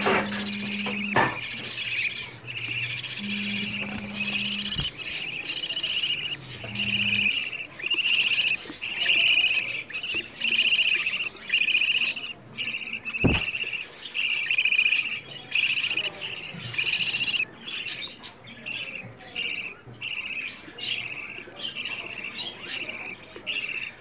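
Budgerigar chicks in the nest box calling over and over to beg for food, with short buzzy cheeps at about one a second.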